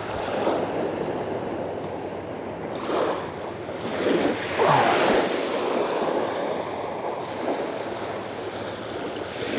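Small surf washing onto the sand in a steady wash that swells and fades every few seconds, with wind buffeting the microphone.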